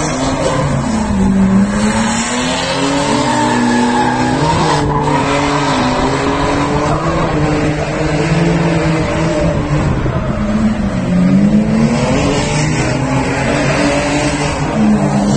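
BMW drift cars on the track, engines revving hard, their pitch rising and falling again and again as the throttle is worked through the slides, over the screech of tyres.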